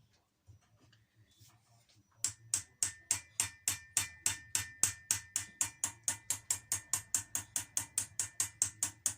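Rapid, even tapping, about five strikes a second, starting about two seconds in over a faint steady ringing tone.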